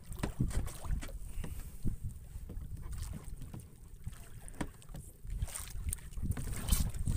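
Sea water splashing and lapping against the side of a small outrigger fishing boat, with scattered knocks and wind buffeting the microphone.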